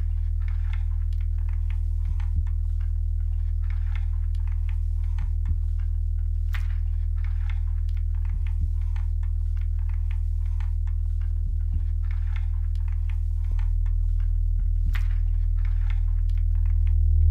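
A steady low droning hum with faint, irregular ticks over it, like a slow clock. The drone steps up a little about three-quarters of the way through and begins to swell near the end.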